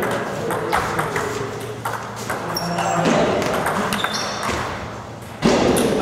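Table tennis balls clicking off bats and tables in quick, irregular taps, with rallies from several tables overlapping, under background voices. A sudden louder sound breaks in near the end.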